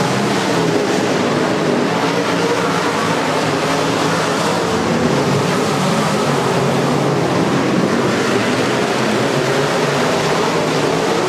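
A pack of IMCA Modified dirt-track race cars at speed, their V8 engines running loud and steady, several engines layered over one another.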